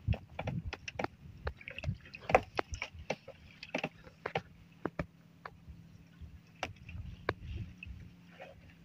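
Fishing net being hauled by hand over the wooden side of a boat: irregular sharp clicks and knocks as the net drags across the wood, with light water sloshing.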